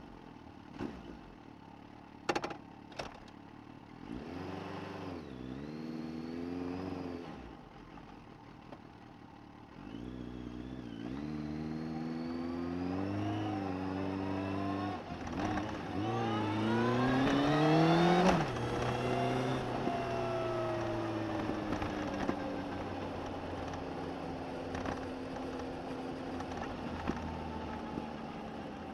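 Suzuki GSX1250FA's inline-four engine, recorded from under the seat, pulling away and accelerating through the gears, with the pitch dropping at each change. It climbs to its highest revs about eighteen seconds in, then the note falls steadily as the bike slows. A few sharp clicks come in the first few seconds.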